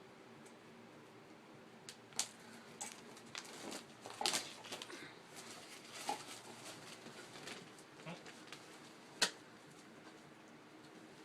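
Light handling noises: scattered clicks, taps and rustles, with a sharper knock about two seconds in, a busier patch around four seconds in, and another sharp click near the end, as a boxed toy is unpacked and handled.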